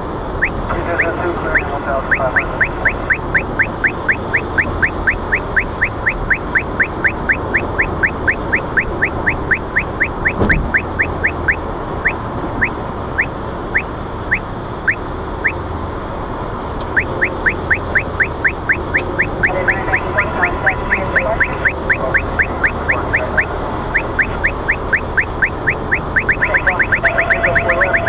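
Uniden R3 radar detector sounding its Ka-band (34.7 GHz) alert over road noise in the car cabin: a train of short rising chirps. The chirps come two or three a second, thin out with a brief break about halfway, then resume and speed up to rapid chirping near the end, as the detector's beep rate climbs with signal strength.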